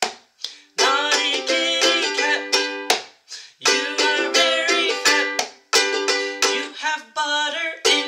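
Ukulele strummed in a steady rhythm of chords, an instrumental passage of a simple sing-along song. The strumming breaks off briefly at the start and again about three seconds in.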